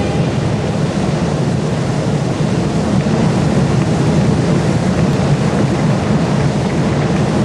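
A large stadium crowd cheering in one loud, steady roar as the Olympic cauldron flame is lit.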